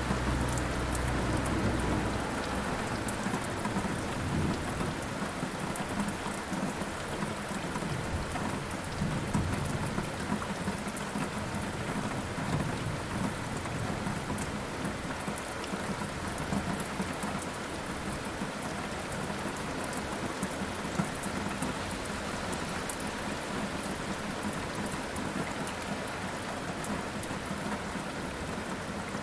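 Steady rain with thunder. A low rumble is loudest at the start and dies away over the first couple of seconds, and further low rolling rumbles follow through the middle under the constant hiss of rain.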